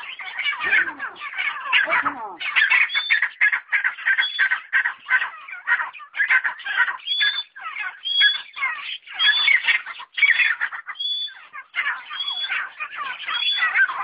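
Partridges (teetar) calling together in a dense, continuous chatter of short, high squawks and chirps, with clear whistled notes mixed in and only brief pauses.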